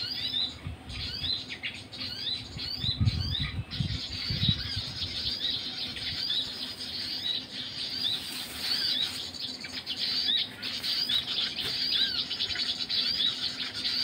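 Recorded bird calls played from an MP3 player as a trapping lure: quick, high chirps repeated several times a second, starting abruptly. A few low thumps come about three to four seconds in.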